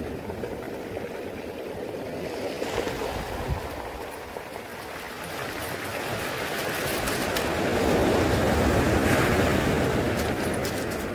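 Sea surf washing up and drawing back over a pebble beach, swelling to its loudest about eight seconds in, with light clicking in the later part.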